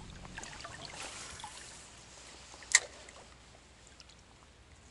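Faint open-air sound on a fishing boat on calm water, with scattered small clicks and one sharp knock a little under three seconds in; a low rumble dies away just after the start.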